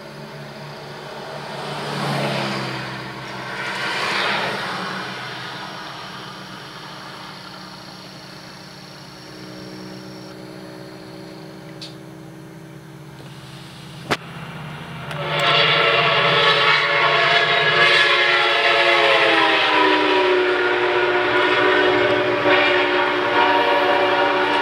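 Sounder commuter train approaching and passing, its multi-note horn faint at first, then sounding loud and steady from just past halfway, the whole chord dropping in pitch as the train goes by.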